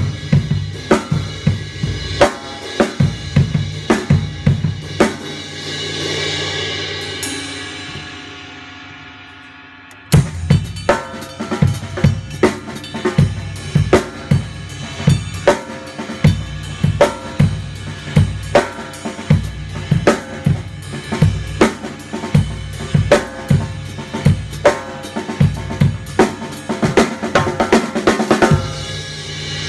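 Fischer 14x8 hybrid acrylic and solid-block snare drum played with sticks in a fast beat, with bass drum and cymbals. About five seconds in, the strokes stop and a cymbal wash swells and fades for a few seconds. The beat comes back in with a loud hit.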